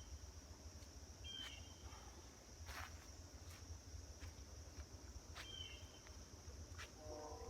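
Faint, steady high-pitched insect chorus, like crickets, with a low rumble underneath. Short chirps come twice, about a second in and past the middle, among a few faint ticks.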